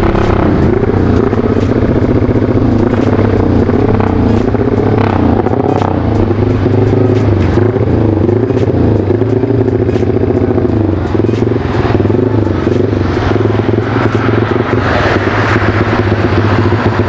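Bored-up Yamaha Vixion's single-cylinder four-stroke engine and exhaust running while ridden, its revs rising and falling over and over with the throttle.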